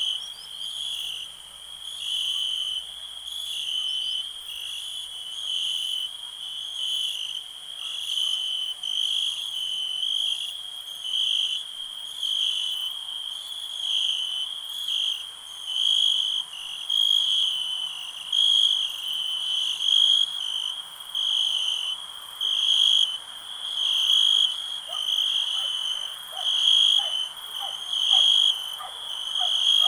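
Crickets chirping in a steady high-pitched chorus that swells and fades about once a second. Near the end a run of short, lower-pitched calls joins in.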